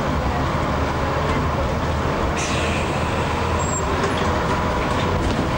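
A bus running along the road, heard from inside its cabin: a steady engine drone with road noise. A short hiss joins higher up about two and a half seconds in.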